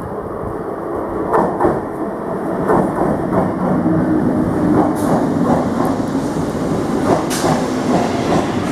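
Electric multiple unit (EMU) suburban train running in alongside the platform, its wheels clicking over the rail joints in a quick, uneven clickety-clack as the coaches pass. The sound grows gradually louder, and a low hum joins about halfway through.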